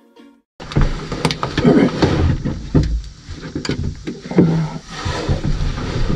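Irregular knocks, scrapes and clothing rustle of a person shifting about and clambering out of a fiberglass boat hull.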